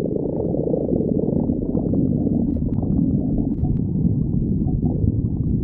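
A person's stomach growling: a loud, continuous low rumble with small clicks and pops through it.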